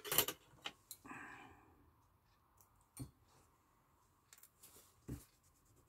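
A few faint, sparse clicks and a short soft rustle about a second in, from quilt fabric being handled while a needle and thread are worked through the layers by hand.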